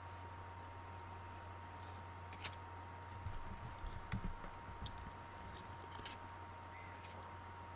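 Faint clicks, taps and soft knocks of baseball cards and packs being handled, over a steady low electrical hum and a faint high whine.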